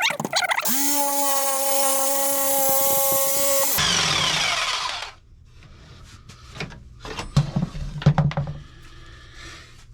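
A power tool's motor runs up to speed with a steady whine, holds for about three seconds, then is switched off and winds down. Scattered knocks and handling of wood follow.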